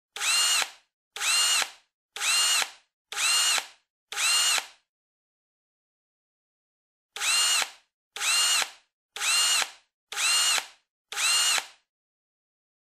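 Power drill driving screws: five short whirrs about a second apart, each rising then falling in pitch. After a pause of a couple of seconds comes a second run of five.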